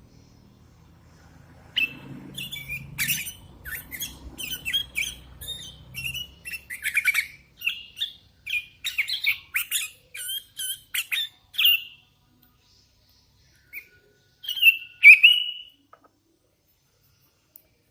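Hand-fed young sooty-headed bulbul (kutilang) calling: a quick run of short chirps and whistled notes from about two seconds in until about twelve seconds, then after a pause a couple more calls.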